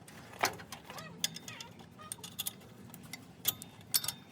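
Irregular light metallic clicks and clinks of hand tools and small parts being handled, a few with a brief ring.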